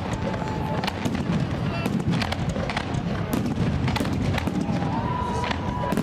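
Fireworks display: a quick, irregular run of bangs and crackles over a steady low rumble, with a few thin held whistling tones.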